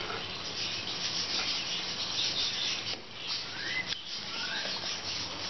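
Hot oil sizzling steadily in a pan as a ladleful of rice-and-jaggery kandarappam (sweet paniyaram) batter deep-fries.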